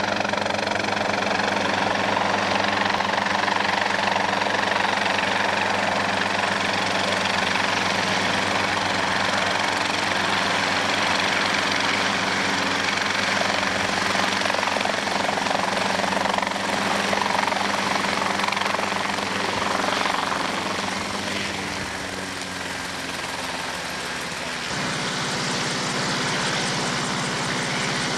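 Helicopter engine and rotor running steadily. The sound drops a little about three-quarters of the way through, then settles at a slightly different pitch.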